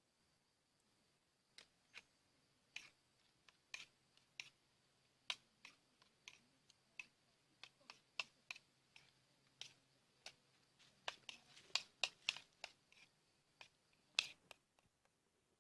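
A series of irregular sharp clicks and taps, a few dozen in all, coming faster and louder toward the end, over a faint steady hum.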